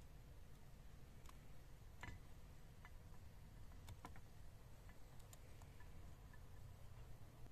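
Near silence, with faint, irregular clicks of a knife cutting through a green chili pepper held in the hand.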